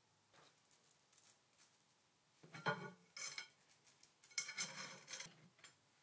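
Aluminium corner bracket and slotted aluminium extrusion being handled and fitted together: light metal clicks at first, then two louder clusters of clinks and scraping, about halfway through and again near the end.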